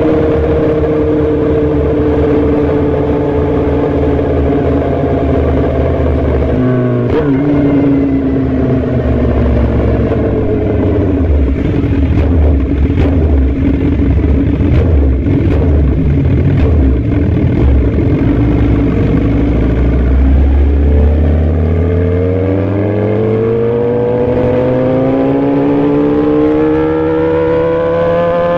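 Sport motorcycle engine heard onboard over heavy wind rush. The revs sink slowly, drop sharply about seven seconds in, and hold through a stretch of cruising with a few sharp clicks. Then the engine pulls in one long rising run of revs, broken by a gear change right at the end.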